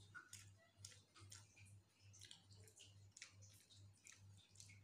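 Near silence with faint, irregular clicks and wet smacks of someone eating rice by hand and chewing, over a low steady hum.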